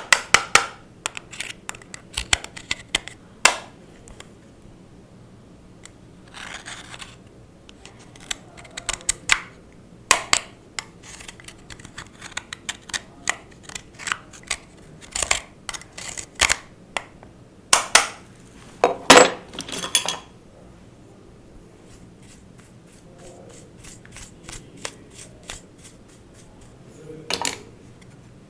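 Close-up handling of makeup products and slime: an irregular string of sharp clicks and taps, with a few longer scraping stretches.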